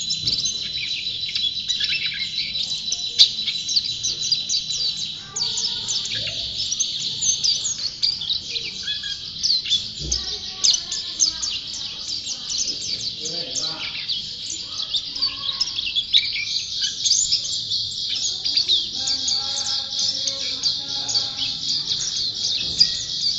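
Pleci (white-eye) in full song: a fast, unbroken stream of high-pitched chirps and trills.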